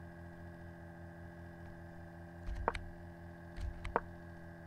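A few short, sharp computer clicks, about two and a half seconds in and again near four seconds, as the chess moves are stepped forward on screen. Under them runs a steady low hum.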